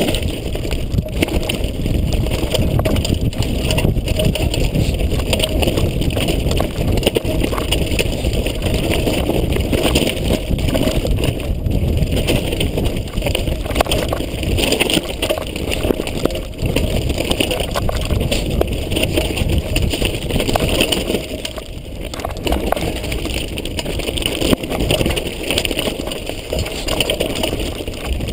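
Wind rushing over the microphone of a bike-mounted action camera, with the steady rumble and rattle of a mountain bike riding down a rocky dirt trail.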